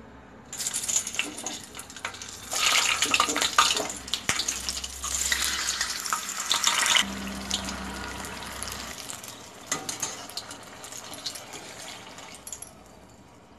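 Green chillies deep-frying in hot oil in a steel kadai: the oil sizzles and crackles hard, strongest through the middle, then eases to a lighter crackle in the last few seconds.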